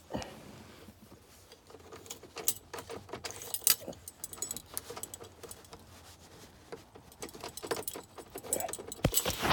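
Keys jangling on a ring with irregular metal clicks and rattles as a small screwdriver is worked in the release hole of a Ford F-350's ignition lock cylinder to free it from the steering column.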